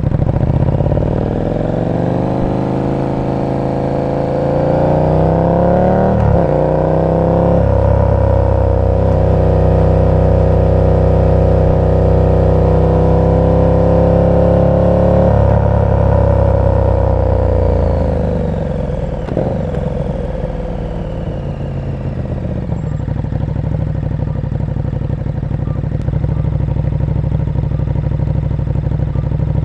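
KTM 1290 Super Duke R's big V-twin through an aftermarket exhaust. It pulls away with rising revs and two quick upshifts, holds a steady cruise, then rolls off, downshifts and settles to a lumpy idle for the last several seconds.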